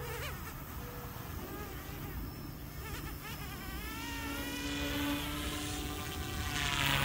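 Goosky S2 RC helicopter with resin-printed main blades, its electric motors and rotor spooling up and lifting off, running on a reduced 60% throttle curve. A buzzing whine rises in pitch as it takes off, then settles into a steady whine as it climbs away.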